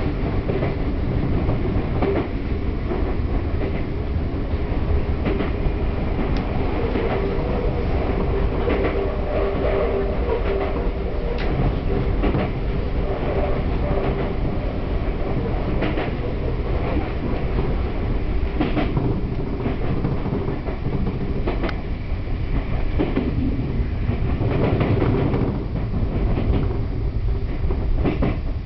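Sotetsu Line express electric train running along the track, heard from inside the car: a steady rumble of wheels on rail with scattered clacks over the rail joints, and a steady hum for several seconds midway.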